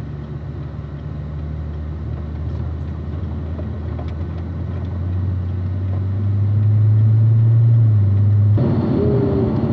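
Corvette C7 Z06's supercharged V8 running at low, steady engine speed while driving. It grows louder from about halfway through, then near the end changes suddenly to a fuller, rougher engine-and-road noise.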